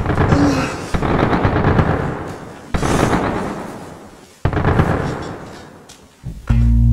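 A series of loud booming blasts, four in all, about every one and a half to two seconds, each dying away slowly. Near the end a steady low droning tone cuts in.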